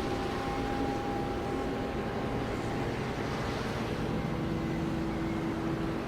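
Cruise ship horn sounding a few held notes, one high note near the start and a lower one near the end, over a steady rush of wind and water noise.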